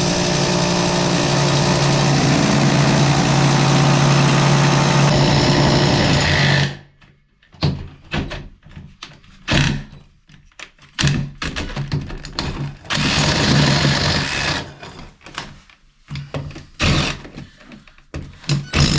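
An electric power tool runs at a steady speed for about six and a half seconds, then stops. Irregular knocks and clatters of tools and parts being handled follow.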